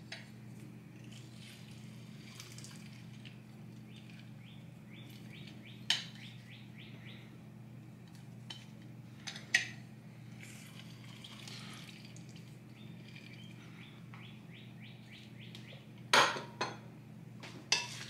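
A few sharp clicks and knocks from a hand-held lime squeezer being pressed and handled over a glass bowl, the last cluster coming near the end, over a steady low hum.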